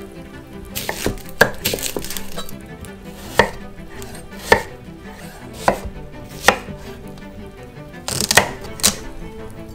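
Chef's knife cutting peeled onions and then a celery stalk on a wooden cutting board: crisp slicing crunches and sharp knocks of the blade hitting the board, about seven in all, a second or so apart.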